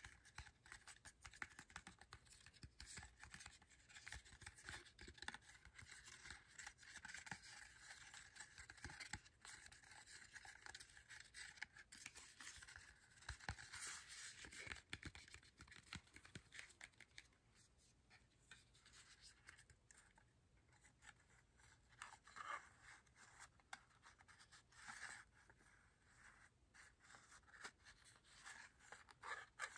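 Fingertips and nails quietly tapping and scratching on a small cardboard razor box, in a quick dense stream at first and sparser, separate taps from about halfway.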